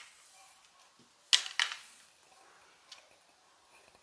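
Two sharp clacks of hard objects on a craps table, about a quarter-second apart, with a faint tick a little later.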